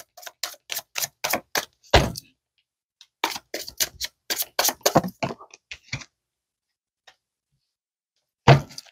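Tarot cards being shuffled by hand: two quick runs of sharp card snaps, about four or five a second, with a heavier knock about 2 seconds in and another near the end.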